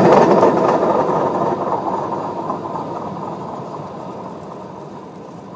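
A train rumbling away down the track just after passing overhead, its noise fading steadily.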